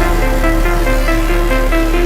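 Background music: a repeating pattern of short melodic notes over a sustained deep bass.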